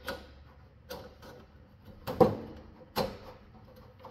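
Metal parts of a grill sear frame knocking and clanking as the heat wave panels and the frame's side bar are pushed and slid into place: about five knocks, roughly one a second, each with a short metallic ring. The loudest comes about two seconds in.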